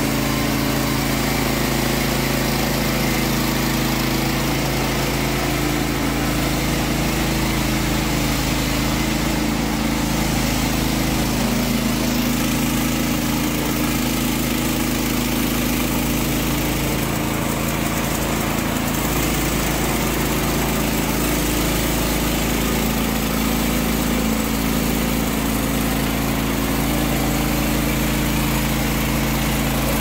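Small gasoline engine of a Norwood LM30 portable bandsaw sawmill running steadily under load while the band blade cuts lengthwise through a log.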